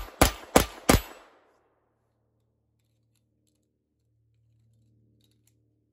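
Smith & Wesson Victory .22 LR semi-automatic pistol firing Winchester Super X bulk ammunition in a quick string, about three shots a second; the last three shots come in the first second, then the firing stops. A few faint clicks follow.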